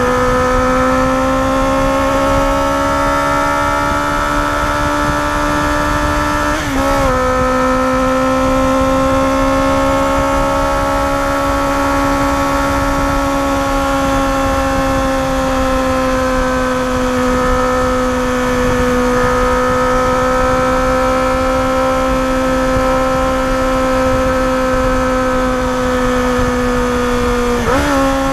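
Yamaha FZR250R's 249 cc inline-four engine running at high revs under way, its note rising and falling gently with the throttle, with wind rush. The note dips briefly twice, about seven seconds in and near the end.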